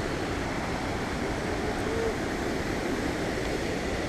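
Steady rushing roar of the Reekie Linn waterfall in its gorge.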